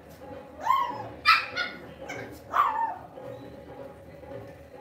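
Lhasa Apso puppies yipping in play: four or five short, high yips in the first three seconds, one sliding down in pitch, then a quieter stretch.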